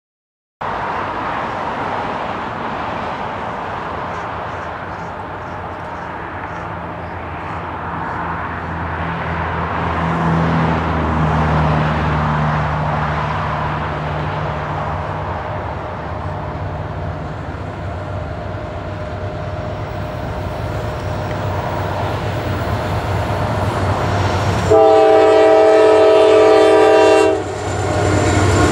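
Norfolk Southern intermodal freight train approaching behind two GE diesel locomotives, an AC44C6M and an ET44AC, with the low drone of the engines swelling over the rumble of the train. Near the end the lead locomotive sounds a long, loud horn blast, breaks off briefly, and sounds it again.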